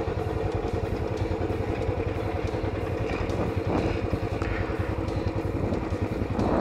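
Royal Enfield Classic 500's single-cylinder engine running steadily under way on a motorcycle ride, with no change in revs.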